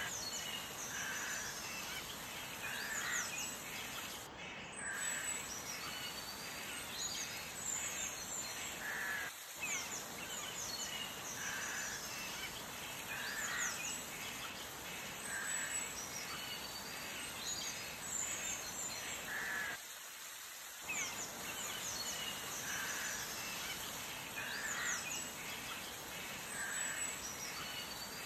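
Outdoor birdsong ambience: many small birds chirping high and fast, with lower calls repeating about every one to two seconds, over a steady hiss. The sound drops out briefly a few times.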